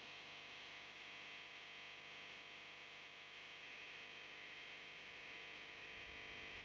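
Near silence: faint steady hum and hiss of room tone.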